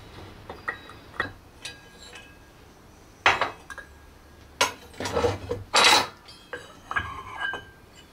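Metal parts of a belt-drive clutch being taken apart and set down on a steel workbench: a series of clinks and clanks, several of them ringing briefly, the loudest about three and six seconds in.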